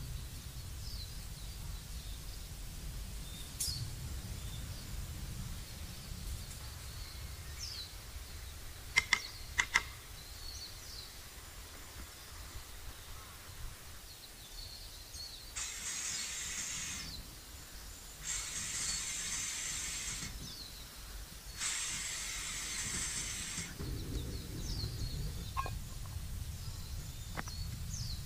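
Outdoor ambience with a steady low rumble and faint bird chirps scattered throughout. A few sharp clicks come about nine to ten seconds in, and three hissing bursts of a second or two each follow past the halfway mark.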